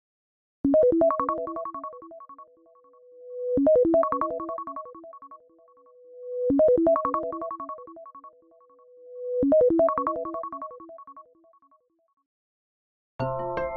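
iPhone ringtone: a short phrase of quick electronic notes played four times, about three seconds apart, with a held tone swelling up into each repeat. It stops near the end and a different ringtone begins.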